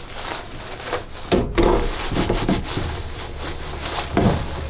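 Microfiber towel rubbing back and forth across a sticker-covered board in uneven wiping strokes.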